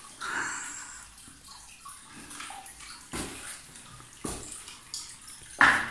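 Water trickling and splashing, with a few sharp knocks; the loudest knock comes near the end.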